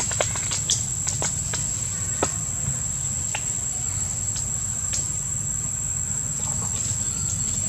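A steady high-pitched insect drone over a low steady rumble, with sharp crackles and snaps of dry leaves and twigs as macaques scramble on the leaf litter, most of them in the first couple of seconds.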